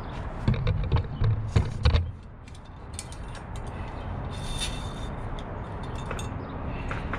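Clicks, knocks and light metallic rattles of bicycle parts and cables being handled, with a cluster of heavier low thumps in the first two seconds and a short scraping rattle about halfway through.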